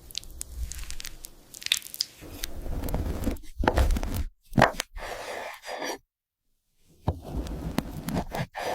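Close-up food sounds of a soft, creamy chocolate cake: a run of short crackles, clicks and moist soft noises, spliced into separate bits with abrupt cuts to dead silence about four and a half seconds in and from about six to seven seconds.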